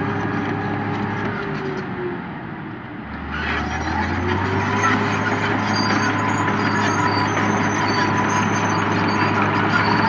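Komatsu D70LE crawler bulldozer's diesel engine running under load as it pushes soil. It eases off briefly, then revs up about three and a half seconds in and holds at the higher speed.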